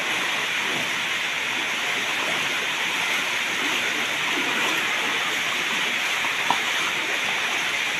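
Steady rush of floodwater from an overflowing river flowing past, with a single brief click about six and a half seconds in.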